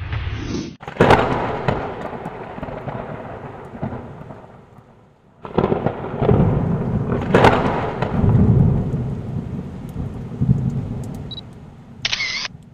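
Thunder: two thunderclaps, each a sharp crack followed by a long rolling rumble that slowly dies away, the second coming about six seconds after the first. A brief sharp sound near the end.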